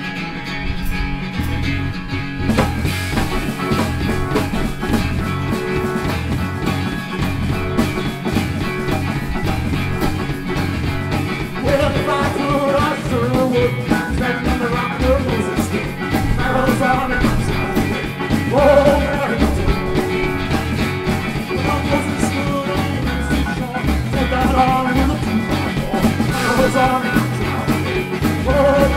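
Live rock band playing: a strummed acoustic guitar, electric organ and drums, with the drums and cymbals coming in about two and a half seconds in. A man sings lead from about twelve seconds in.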